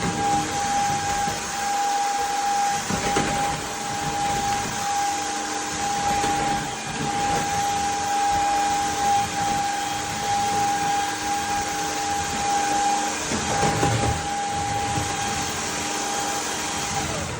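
Shark cordless stick vacuum running steadily: a constant motor whine over the rush of air, with a couple of brief bumps, about 3 and 14 seconds in.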